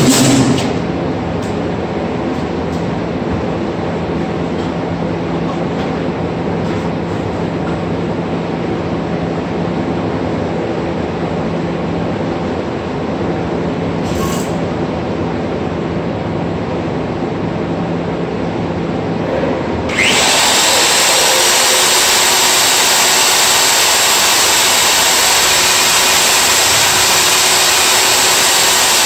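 Milwaukee wall-mounted core drill running steadily while coring, a hum with a steady tone. About two-thirds of the way through it gives way abruptly to a louder, even rushing hiss.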